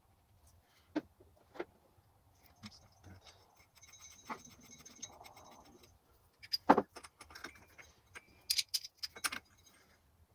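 Small steel parts and tools clinking and clicking as the clutch hub nut is fitted on a dirt bike's clutch, with a brief high metallic ringing and one sharper clink a little past halfway.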